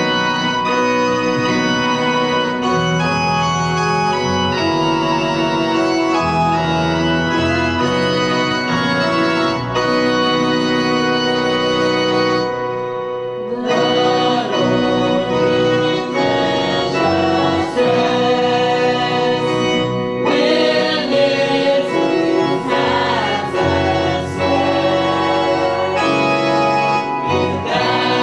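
A church congregation sings a hymn with keyboard accompaniment. The accompaniment plays steady chords on its own for about the first twelve seconds. After a brief dip the voices come in singing.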